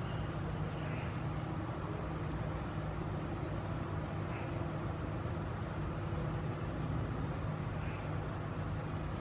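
Steady low background rumble with a constant hum, unchanging throughout, like distant road traffic.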